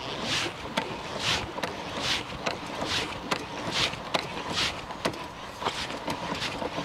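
Roll-out roof awning on a camper van being wound out with a hand crank: a rhythmic swishing with small clicks, about one swish every second.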